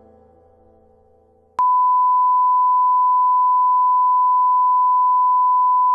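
Music fades out, then about a second and a half in a single steady, loud test tone starts abruptly and holds: the line-up tone played with colour bars.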